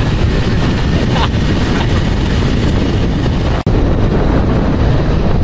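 Steady, loud wind rushing over the microphone of a phone carried in a moving vehicle, with the vehicle's running noise underneath; it cuts out for an instant about three and a half seconds in.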